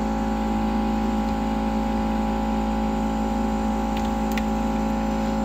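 Steady electric fan-motor hum with several fixed tones, the sound of workshop repair equipment such as a heat gun left running. Two faint light ticks come about four seconds in.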